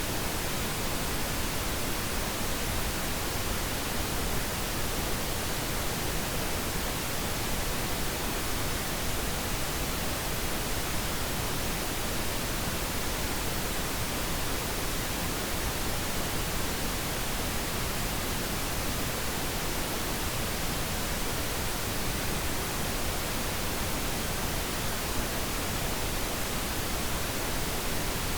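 Steady pink noise: an even, unchanging hiss with no tones or breaks, played for sleep masking.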